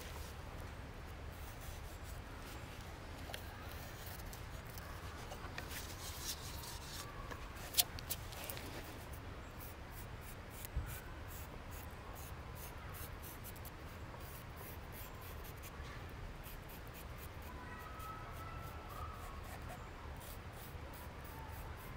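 Charcoal stick scratching and rubbing across a split birch blank as an outline is traced around a wooden cup. There are two sharp clicks, about eight and eleven seconds in.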